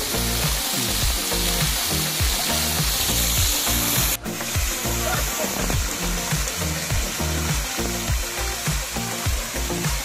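Small waterfall pouring and splashing onto a bather in a steady hiss of falling water, with background music carrying a rhythmic bass line underneath. The sound breaks off briefly about four seconds in.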